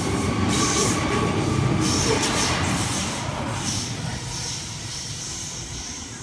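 Sydney Trains Waratah electric train pulling out of the station, wheels rumbling and rattling over the rails as its last cars pass. The noise holds for about three seconds, then fades as the train draws away.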